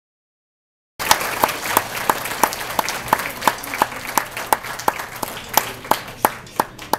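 Audience of middle-school students applauding, with one loud nearby clapper keeping about three claps a second. The applause cuts in suddenly about a second in and dies down near the end.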